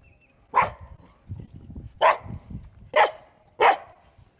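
A dog barking four times in short sharp barks, excited while a stick is held away from it.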